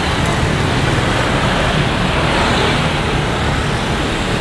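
Road traffic: motor scooters and small minibuses passing close by, a steady mix of engine and tyre noise.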